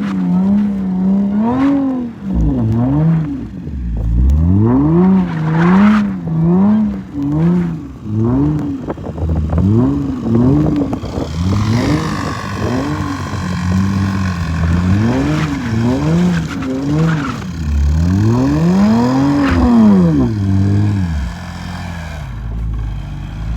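Supercharged Audi engine revved over and over, its pitch climbing and dropping in quick sweeps, with a high supercharger whine over the engine for a few seconds midway. Near the end it drops back to a steady idle.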